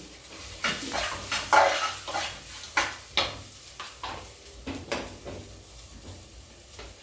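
Sausage slices frying with tomato and onion in a pan, stirred with a utensil that scrapes the pan: a steady faint sizzle under a run of irregular scrapes, most of them in the first five seconds.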